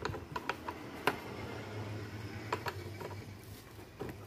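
Scattered small clicks and taps of hard plastic and metal parts as a mirror is handled and fitted at a scooter's handlebar end, over a low steady hum.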